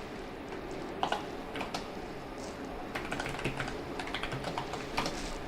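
Typing on a computer keyboard: irregular key clicks, a few a second, over a steady background hum.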